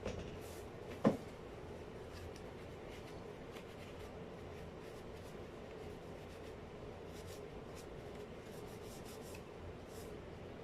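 Faint rubbing, scratching and light clicks of small parts being handled, with one sharp knock about a second in, over a low steady hum.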